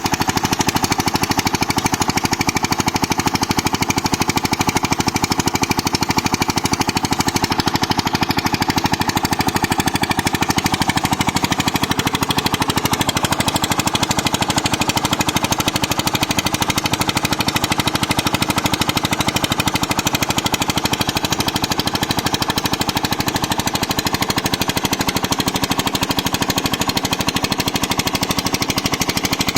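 Petter diesel engine running steadily in a fast, even put-put firing beat, belted to a tube-well water pump.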